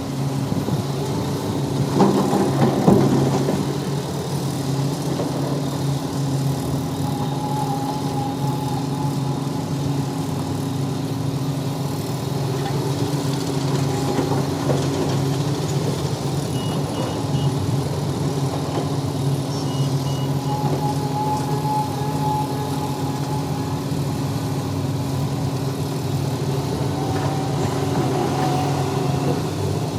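Heavy diesel machinery engine running steadily at work, with a burst of metallic clatter and knocks about two seconds in and a faint higher whine twice.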